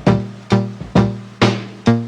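Lo-fi hip hop instrumental music: a steady beat with a plucked or struck pitched note on each beat, about two a second, over a sustained low chord.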